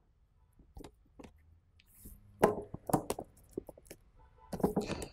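Short clicks and knocks of small objects being handled as the cap of the lighter-fluid can is closed, coming in scattered groups, busiest around the middle and near the end.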